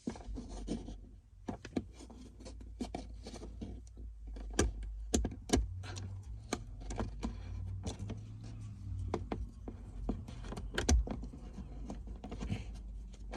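Screwdriver working a screw out of a Jeep Wrangler JL's plastic dash panel: irregular small clicks and taps of metal on plastic, over a steady low hum.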